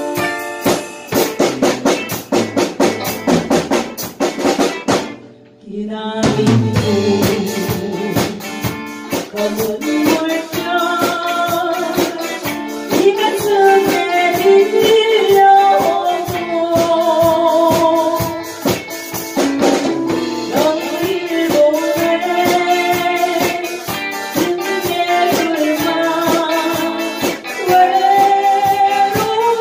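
Live band playing a song in a small rehearsal room: drum kit, electric guitars and keyboard. After a brief break in the playing about five seconds in, a woman sings the melody over the band.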